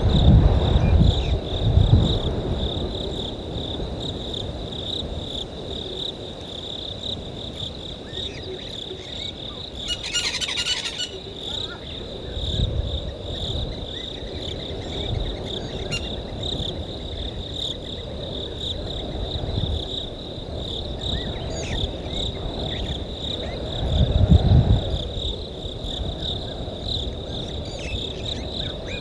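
A steady chorus of crickets or other insects, one continuous high trill. Low rumbles come and go, the loudest about 24 seconds in, and a brief rasping burst sounds about 10 seconds in.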